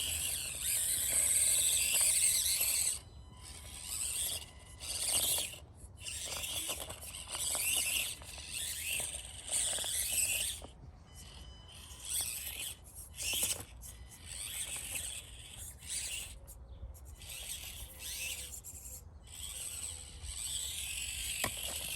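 Axial SCX24 1/24-scale RC crawler's small electric motor and gears whining in stop-start bursts as the throttle is worked. It runs steadily for the first three seconds, then comes in short spurts of a second or so with pauses between.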